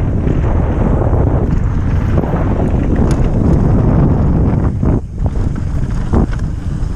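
Wind buffeting an action camera's microphone as a mountain bike descends a downhill trail, a loud steady rush with scattered short knocks. The rush briefly drops away about five seconds in.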